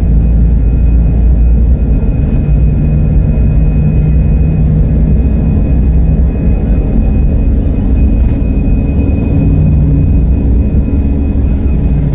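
Airliner's engines running, a loud steady low rumble with a thin steady high whine over it.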